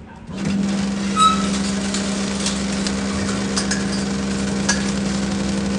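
A steady low mechanical hum, with light clinks and ticks scattered over it.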